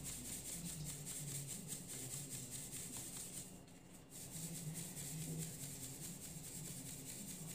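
Semolina being shaken through a metal mesh sieve into a steel bowl, a hand tapping the sieve's side: a rhythmic rustling hiss that pauses briefly about three and a half seconds in.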